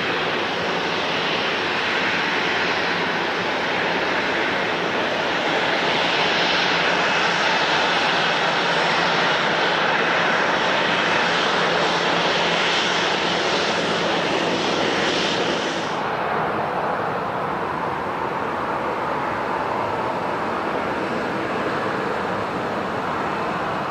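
Airliner engines running loudly, a dense steady noise. About two-thirds of the way through, the high hiss drops away suddenly and a lower noise carries on.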